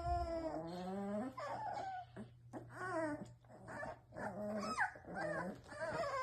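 Litter of Presa Canario puppies whimpering and cooing: many overlapping high whines that rise and fall, several at once with short gaps. This is the sound they make as they settle themselves to sleep.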